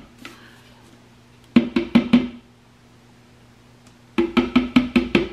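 Background music: short runs of quick plucked, percussive notes, about five a second, over a steady low held tone.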